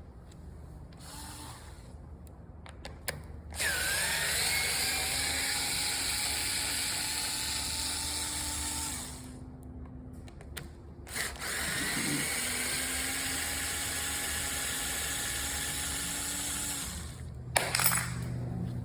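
Small cordless drill backing screws out of a deadbolt part: two runs of about five seconds each, the motor whine dropping in pitch as it bites and then holding steady, with a few clicks and handling knocks in the pauses.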